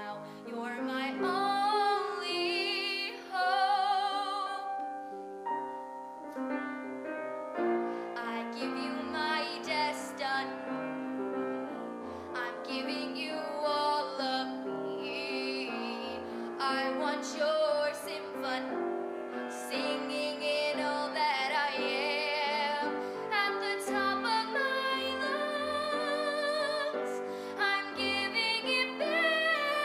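A young woman singing solo over piano accompaniment, with vibrato on her held notes.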